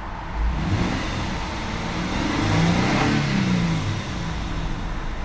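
2004 Nissan Pathfinder's 3.5-litre V6 revved up to about 3,000 rpm, heard from the driver's seat. The pitch climbs over the first few seconds, peaks about three seconds in, then falls back.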